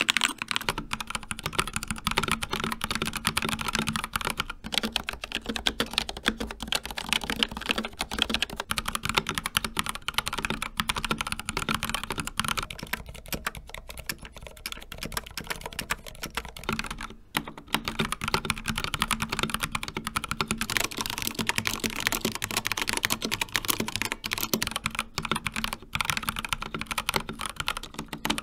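Fast continuous typing on a series of mechanical keyboards, the board changing about every eight seconds: a Keychron K2 with Gateron Red switches, then an Asus ROG Claymore II with ROG RX Red switches, then, about twelve seconds in, a Glorious GMMK Pro with Gateron Black Ink switches, and, about twenty seconds in, a Corsair K70 Pro Mini Wireless with a brighter, clackier sound.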